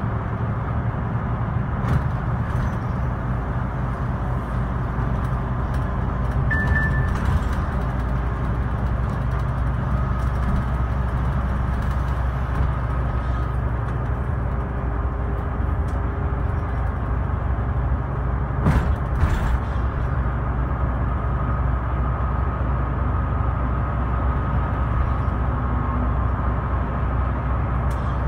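Inside a moving Scania K320IB bus: its 9-litre five-cylinder diesel engine running steadily under way, with road noise. A few sharp knocks or rattles come through, one about two seconds in and two close together about two-thirds of the way through.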